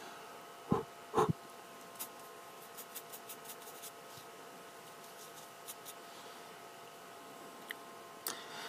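A makeup brush handled close to the microphone: two soft thumps about a second in, then a scatter of light ticks and faint brushing, over a faint steady electrical hum.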